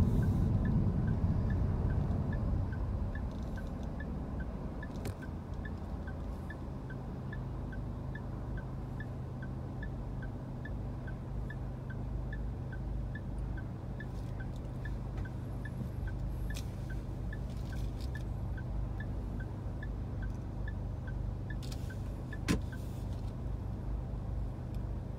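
Car interior noise. Road and engine noise fades over the first few seconds as the car comes to a stop, then a steady low idle hum. Through it runs a light, regular ticking, a little over two a second, and one sharp click comes near the end.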